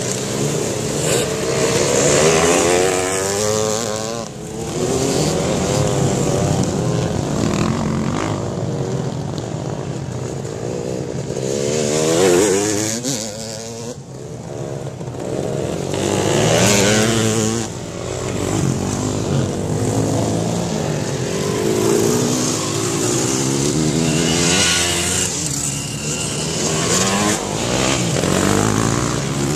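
Off-road dirt bikes racing past one after another, engines revving up and dropping away as each bike goes by, in repeated waves every few seconds.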